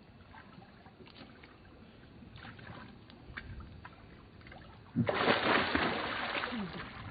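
Water splashing and sloshing, starting suddenly about five seconds in and loud for about two seconds, as an inflated wheel is pushed into water to check it for a puncture. Faint small knocks and clicks come before it.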